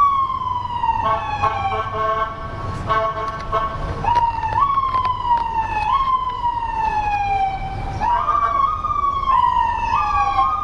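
Emergency vehicle siren, each cycle jumping up quickly and then gliding slowly down, repeating about every two seconds. A steady horn-like tone sounds along with it from about one to four seconds in.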